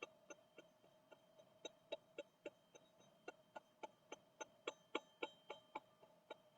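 Gold ZenTube played softly: faint, quick metallic plinks, about four a second, over a steady soft ringing tone.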